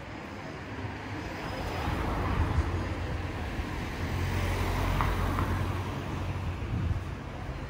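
A car passing by in the street, its noise building over a few seconds, with a low engine hum, and easing off near the end.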